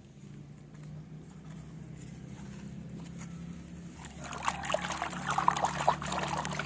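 Water splashing and trickling as a toy vehicle is washed, louder and busier from about four seconds in, over a steady low hum.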